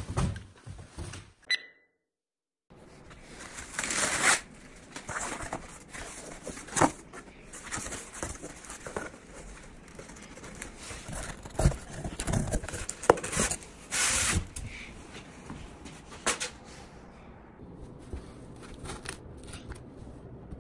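Cardboard and black foam boards being unpacked and handled: irregular bursts of scraping and rustling. A brief dead silence about two seconds in.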